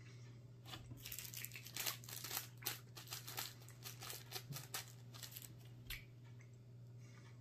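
Candy wrapper crinkling and crackling as a chocolate candy is unwrapped by hand, a dense run of small crackles from about a second in, thinning out after about five seconds.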